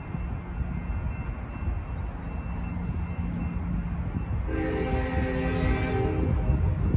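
Horn of an approaching Union Pacific freight's lead locomotive, a GE C45AH, sounding one long blast of a little under two seconds about halfway through, over the low rumble of the oncoming train growing louder.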